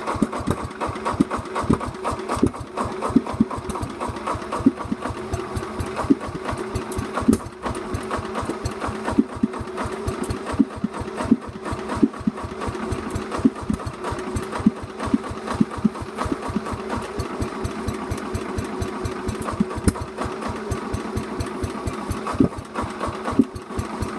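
Sears Suburban garden tractor's Tecumseh engine running steadily at idle, just after being started.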